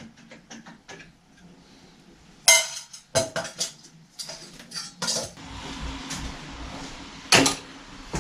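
Small metal parts and tools clinking and clattering on a workbench while a machine is being taken apart, with a few sharp clanks that ring briefly, the loudest about two and a half seconds in and near the end.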